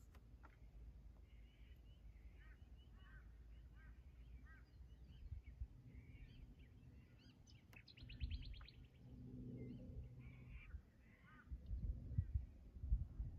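Faint birdsong: a string of short falling chirps, then a fast trill about eight seconds in. Low rumbling bumps join in the second half.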